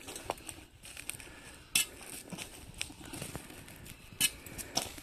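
Scattered sharp knocks and clicks on ice, from someone stepping or working on the frozen surface. The loudest comes about two seconds in and two more near the end.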